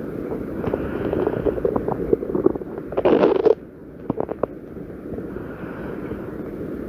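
A person's stomach growling and gurgling, with small crackling pops and one louder gurgle about three seconds in that lasts about half a second.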